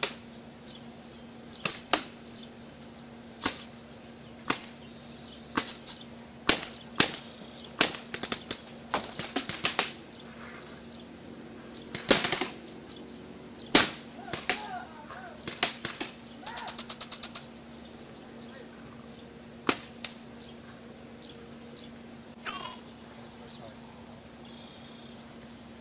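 Paintball markers firing: scattered single shots and short volleys of sharp pops, with one fast, even string of about a dozen shots a little past halfway.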